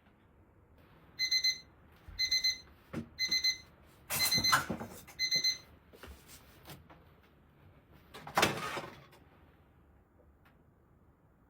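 Electronic beeps: five short clusters of high-pitched beeps about a second apart, with two brief noisy rustling or clattering bursts, one in the middle and one near the end.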